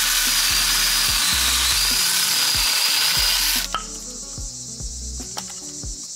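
Saker cordless brushless mini chainsaw running at a steady high whine as it cuts through a small branch, then stopping sharply a little before four seconds in. Crickets chirp in the background once it stops.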